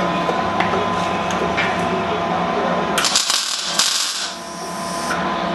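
Angle grinder grinding steel, a bright hissing grind that starts about three seconds in and stops about two seconds later. Before it, a steady hum with a few light metal clinks.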